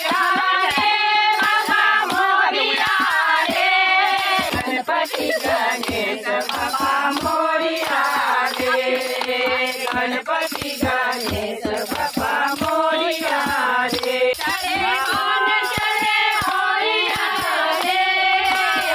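A group of women singing a song together, with steady rhythmic handclaps keeping time.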